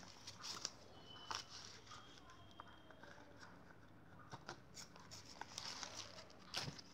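Faint handling noises of a latex light-up balloon being worked over its LED light unit: scattered soft clicks, rubs and rustles.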